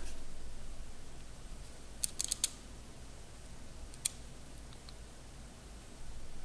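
Light clicks and taps from a digital caliper and pen being handled: a quick run of four clicks about two seconds in, then one sharper click about four seconds in, over a low steady room hum.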